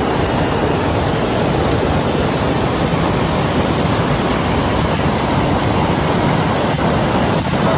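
Loud, steady rushing noise with no clear tone or rhythm.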